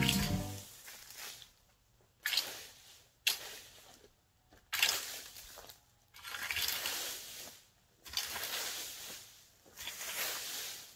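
A rake dragged through dry fallen leaves: six rustling, scraping strokes, each about a second long, with short pauses between.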